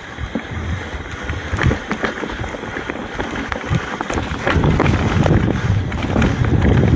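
Mountain bike rolling down a rocky trail: tyres crunching over stones and the bike rattling, with many small knocks, getting louder about halfway through.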